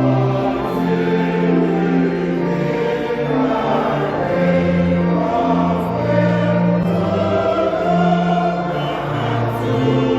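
Church choir singing a hymn, with steady held bass notes underneath.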